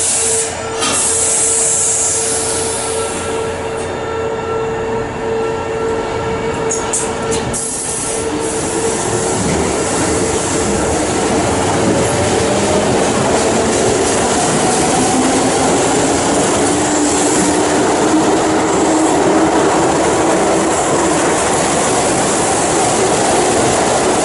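Keihan electric train pulling out of the station: its motors whine in rising tones from about nine seconds in as it picks up speed, over loud running and wheel noise.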